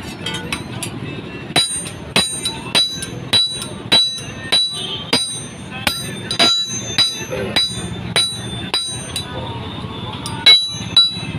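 Hammer striking iron in a steady rhythm, roughly one blow every half second or so, each with a short metallic ring. The blows start about a second and a half in and come faster near the end.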